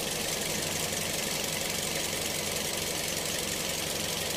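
Toyota Vios engine idling with a steady, fast clatter, the air-conditioning switched on. The aircon blows only fan air with no cooling, and the compressor is suspected of being broken.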